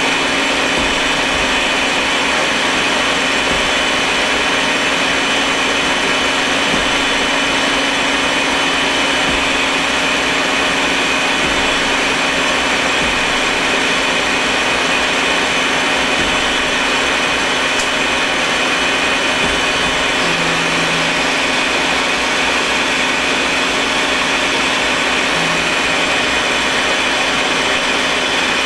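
Citizen A32VII Swiss-type CNC automatic lathe machining a small metal part under cutting oil: a steady mechanical whir of spindles, tooling and coolant, with a low hum and a high whine held throughout.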